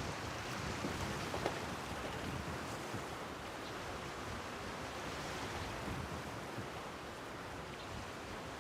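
Steady rushing ambience of wind and water, with a faint click about a second and a half in.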